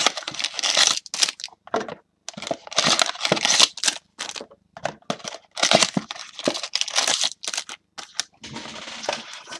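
Card packaging being handled by hand: a quick, irregular run of crinkling and tearing noises.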